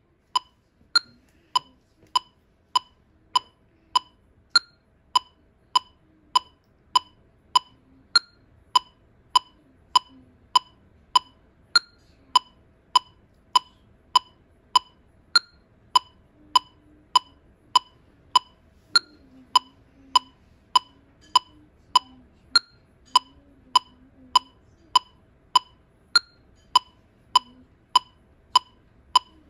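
Electronic metronome of a Seiko STH200 metronome & tuner ticking steadily at 100 beats per minute, a short sharp beep about every 0.6 s.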